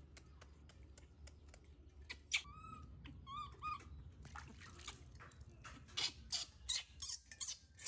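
A baby monkey gives a few short, high squeaky calls while it is being bathed. Then water splashes repeatedly, about two to three splashes a second, as it is rinsed over a basin by hand.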